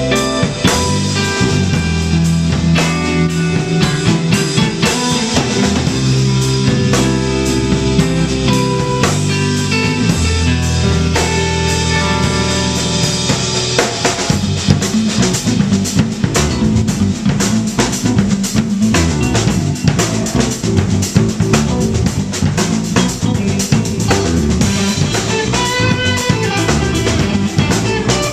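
Live instrumental rock trio of electric guitar, electric bass and drum kit playing. About halfway through, the held bass notes give way to busier playing and denser drum hits.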